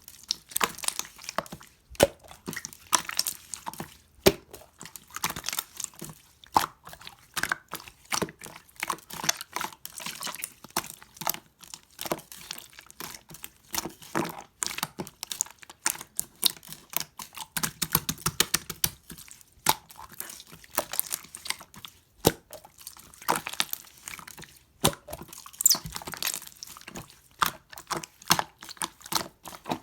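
White slime being squished, folded and stretched by hand, giving a dense, irregular run of wet clicks and pops.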